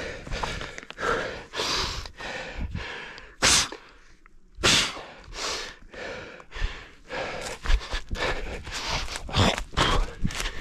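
An orienteer running, breathing hard close to a head-mounted microphone: irregular loud breaths with short footfall thumps between them.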